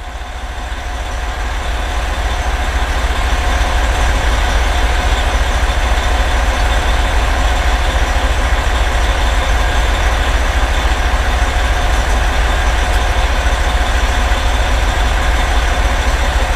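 Diesel engine of a 2010 Pierce Velocity fire engine, a Detroit Series 60 inline-six, idling steadily with a deep low rumble, heard from inside the cab. It fades in over the first few seconds, then holds level.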